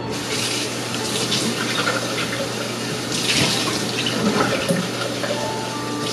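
Water running from a kitchen tap into a sink: a steady rushing hiss that swells briefly about three seconds in.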